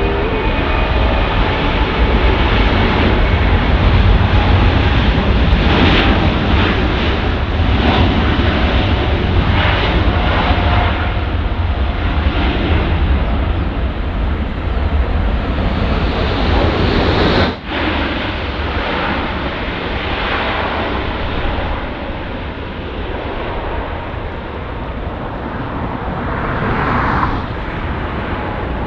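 Lufthansa heavy twin-aisle jet departing under takeoff thrust: a loud, steady jet-engine roar that briefly drops out once a little past halfway.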